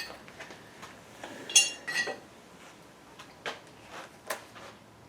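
Metal tools and parts clinking and tapping against each other in a few separate strokes, one ringing clink about a second and a half in, followed by lighter taps.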